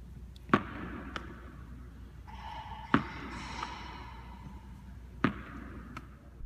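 A tennis ball smacking sharply in the hands or off the hard gym surfaces as it is thrown and caught: three loud smacks about two and a half seconds apart, with a lighter tap shortly after the first, each echoing in a large gymnasium.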